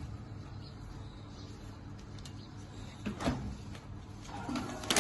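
A box sliding on the ball-bearing table top of a box strapping machine, over a low steady hum, with a sharp knock about three seconds in and another near the end.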